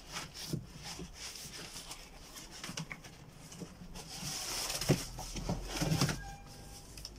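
Corrugated cardboard flaps being bent and folded in by hand: rustling, scraping rubs with several sharp knocks, busiest in the second half.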